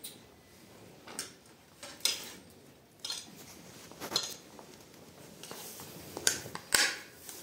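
Metal spoons clinking and scraping against plates as rice and stew are served. The clinks are scattered, with two sharp ones near the end the loudest.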